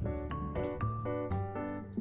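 Background music: a light melody of bright struck notes, several a second, over a steady bass line.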